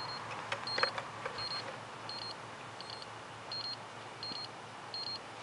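Electronic warning beeper on the electric RC helicopter gear giving short high double beeps at an even pace, about three every two seconds, the alarm that goes with its flight battery having run flat. A few faint clicks and handling noises sound alongside.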